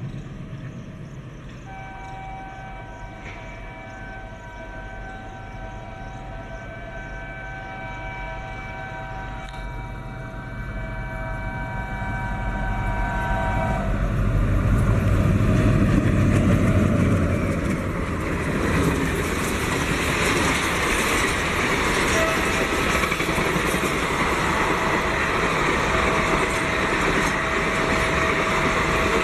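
Indian Railways diesel locomotive approaching at speed and sounding a long multi-note horn for about twelve seconds. Its engine rumble swells to its loudest as it passes, and then the coaches run by with steady rolling and wheel noise.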